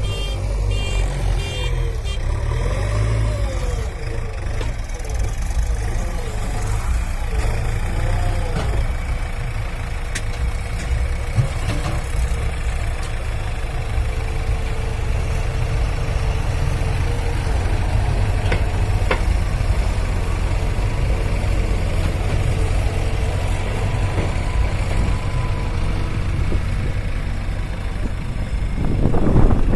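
Heavy diesel engine running steadily with a deep rumble, growing louder near the end.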